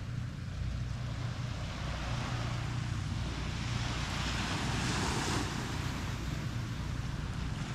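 Small waves washing onto a sand beach, with one fuller wash about four to five seconds in, over a steady low rumble of wind on the microphone.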